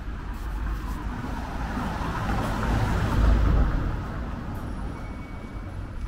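A motor vehicle driving past on the street: its noise grows louder to a peak about three seconds in, then fades away.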